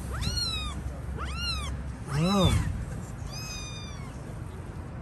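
Kittens meowing: four separate calls, each rising and then falling in pitch, the third lower and the loudest, from a kitten or cat in the group.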